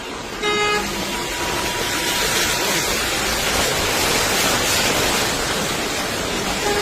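Heavy storm rain, possibly with hail, pouring down as a loud, dense, steady hiss that thickens about a second in.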